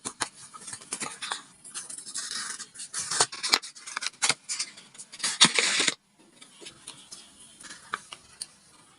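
Paper crinkling and rustling close up, with many sharp clicks and taps. The sound drops off abruptly about six seconds in, leaving fainter scattered handling clicks.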